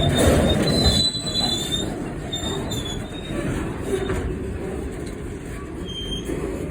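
Freight train of steel wagons rolling along the dock line, its wheels squealing on the rails in several short high-pitched squeals over a low rumble that is loudest in the first second.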